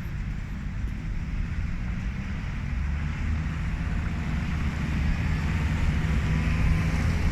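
Low, steady rumble of road traffic mixed with wind buffeting the microphone, slowly growing louder toward the end.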